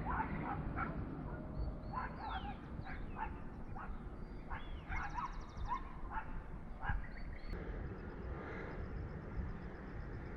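Short animal calls, repeated many times for the first seven seconds or so, then thinning out. High chirps and trills sound now and then over a steady low rumble of wind on the microphone.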